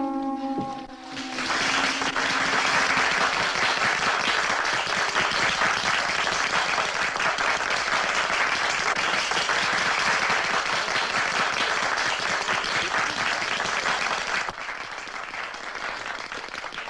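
An audience claps, breaking out about a second in as a held musical chord ends and dying down near the end.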